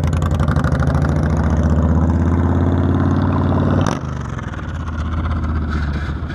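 Motorcycle engine running with an even, pulsing beat, its pitch creeping slowly upward. About four seconds in, the sound drops sharply with a click, and a quieter engine sound carries on.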